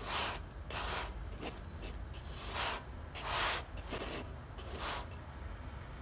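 Wooden spatula rubbing and scraping over a puffed yeasted flatbread in a dry stone-coated frying pan: a string of short swishing strokes as the bread is pushed round in the pan, ending about five seconds in.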